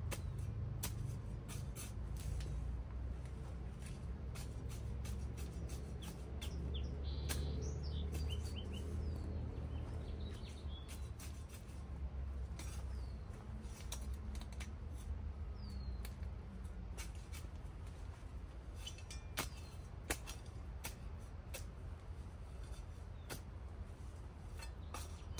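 Birds chirping now and then over a steady low rumble, with scattered sharp clicks and taps.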